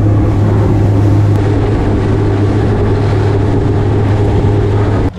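Fishing boat running at speed under outboard power: a loud, steady engine drone with rushing noise over it, cutting off suddenly near the end.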